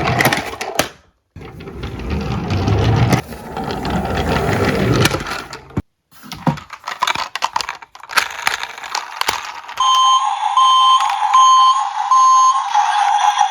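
Diecast toy cars rolling down a slope with a rattling rumble, then clicks and clatter. About ten seconds in, a toy emergency vehicle's electronic siren starts beeping at about two beeps a second, turning into a steadier wavering tone near the end.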